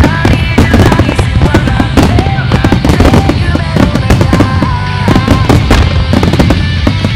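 Starmine fireworks bursting in quick succession, many sharp bangs a second, over loud music playing.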